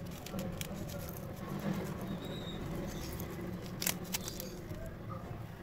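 Light clicks and small handling sounds from a hand moving small items, over a steady low hum, with a sharper pair of clicks about four seconds in.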